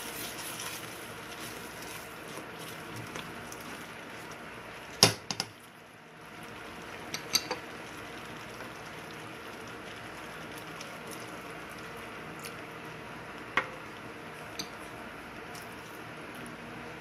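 Milk sauce bubbling at a boil in a frying pan, a steady hissing simmer, with a spatula stirring it and knocking against the pan: a sharp knock about five seconds in, a few quick clicks a couple of seconds later, and two more knocks later on.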